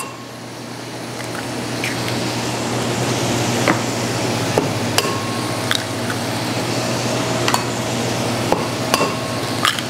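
Red peppers and onions sizzling in olive oil in a frying pan, a steady hiss that grows louder over the first few seconds, with scattered sharp taps as eggs are cracked against a bowl.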